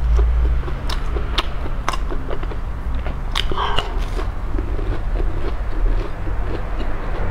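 Close-miked chewing of crispy battered fried food, with scattered sharp crunches and wet mouth noises over a steady low hum.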